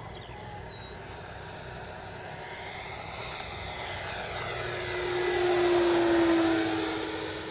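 Electric RC F4U-1A Corsair model's brushless motor and 14x10 three-blade propeller whining on a flypass. It grows louder to a peak about six seconds in, and its tone drops slightly in pitch as the model goes by.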